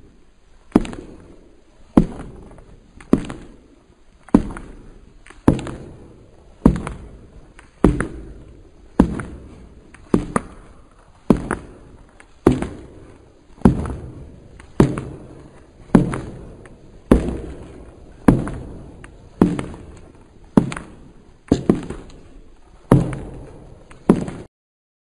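Slow, heavy footsteps on a hard floor, about one step a second, each a sharp knock that echoes briefly, stopping near the end.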